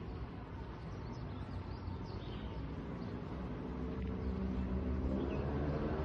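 Low engine drone that grows louder over the last couple of seconds, with a few faint bird chirps.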